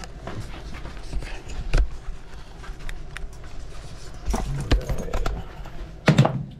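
Irregular knocks and clunks over a low steady hum, with the loudest knock about two seconds in and a cluster of clunks near the end.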